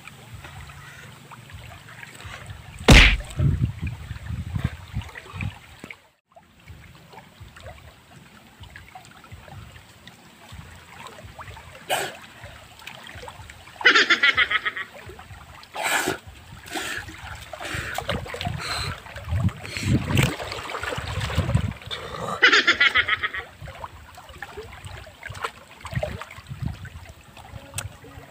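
Shallow river water splashing and sloshing as a person wades and dives in it, with a few sharp knocks and two short high-pitched sounds along the way.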